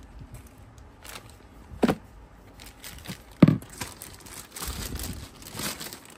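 Clear plastic packaging bags crinkling as a cordless drill and its packaging are handled, with two dull knocks, the louder about three and a half seconds in.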